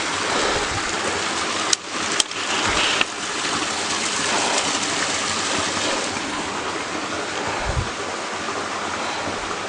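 Steady rush of running water, like a stream or small waterfall, with two short sharp clicks about two seconds in.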